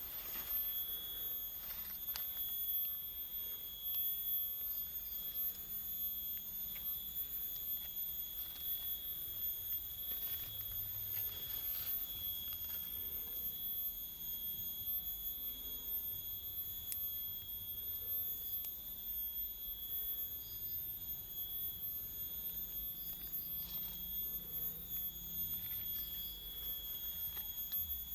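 A steady high-pitched whine with fainter higher overtones, holding one pitch without pulsing.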